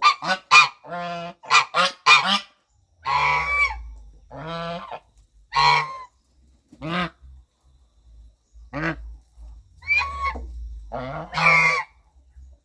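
Goose honking: a quick run of short honks in the first two seconds or so, then single, longer honks every second or two.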